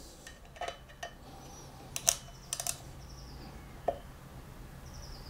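Sharp metallic clicks and clinks of a hand tool on the small stainless screws of a motorbike wheel's ABS ring as they are tightened by hand, a scattering of short ticks with the loudest about two seconds in and a quick cluster just after.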